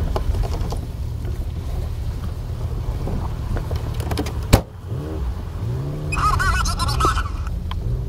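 Jeep engine running at low trail speed, its revs rising and falling from about five seconds in, with knocks and rattles from the rough ground and one sharp knock about four and a half seconds in.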